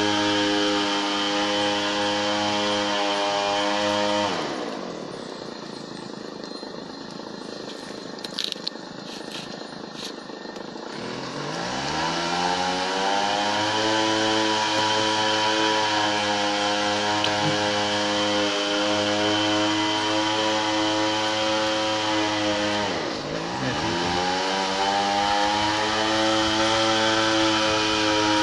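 A small engine running at high, steady revs. About four seconds in its pitch falls away and it goes quieter, with a few clicks, then it revs back up near the middle, with one brief dip in speed later on.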